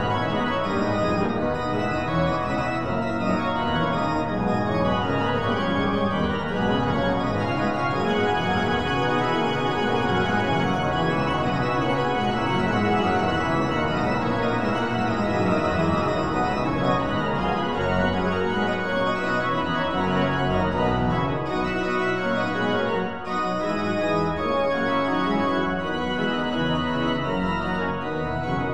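Organ music: held chords that change every second or two.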